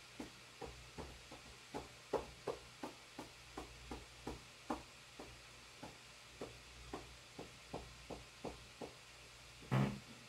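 A run of light, regular clicks or taps, about three a second, then one louder knock with a low hum near the end.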